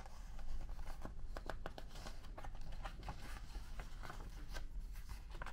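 Page of a large picture book being turned by hand: paper rustling and crinkling with many light clicks.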